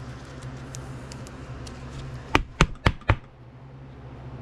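Four quick knocks in under a second, about two and a half seconds in: a trading card and a clear plastic card holder tapped against a wooden tabletop by gloved hands.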